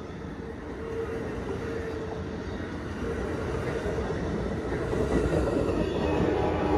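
A train rumbling along the rails, growing steadily louder as it approaches. A horn begins to sound near the end.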